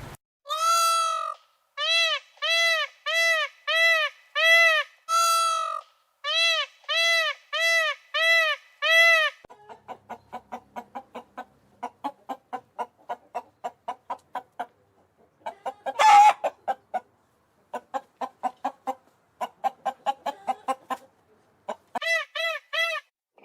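Chickens calling: a run of evenly spaced, drawn-out pitched calls, then quick short clucks at about four a second, with one loud harsh squawk partway through and a few of the drawn-out calls again near the end.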